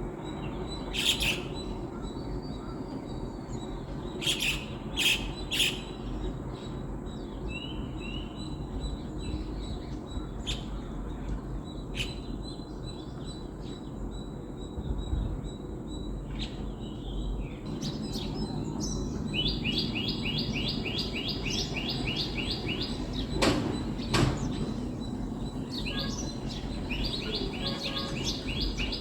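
Wild birds chirping: scattered short high calls, then twice a fast, evenly repeated trill of high notes lasting a few seconds each, over a steady low background rumble.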